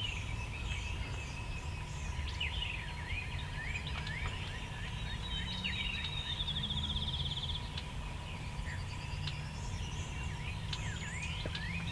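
Several songbirds singing over one another in spring woodland: many short chirps and slurred whistles, with a fast, even trill from one bird in the middle. A low rumble and a faint steady hum run underneath.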